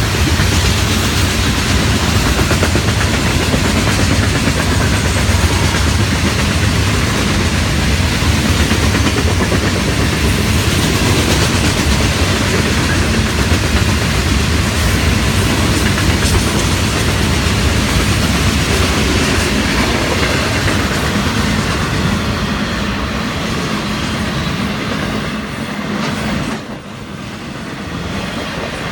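Freight cars of a Florida East Coast Railway train, rock hoppers and then intermodal container cars, rolling past with a loud, steady rumble of steel wheels on rail. The noise drops sharply for a moment near the end, then partly comes back.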